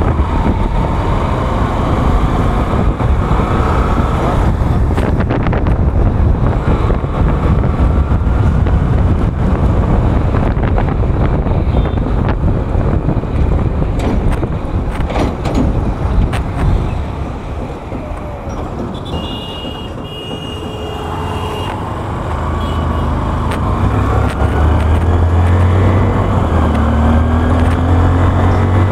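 Hero Hunk motorcycle's 150 cc single-cylinder engine running under way with road and wind noise; about two-thirds through it eases off and quietens, then pulls again near the end, its pitch rising as the bike speeds up.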